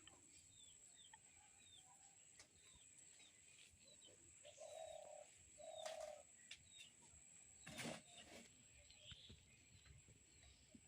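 Faint outdoor birdsong: small birds chirping over and over, with two low cooing notes about halfway through. A brief knock or rustle comes about three-quarters of the way in.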